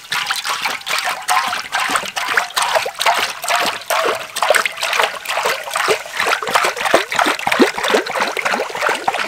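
Cooking oil pouring in a thin stream from a large plastic jug into a wide metal wok, trickling and splashing irregularly into the oil already pooled in the pan.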